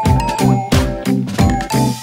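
Background music with a steady beat of about four strokes a second and a melody on top.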